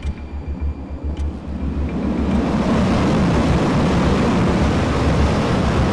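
F/A-18 fighter jet's engines on approach, a low rumble that grows much louder about two seconds in and then holds as a steady jet noise.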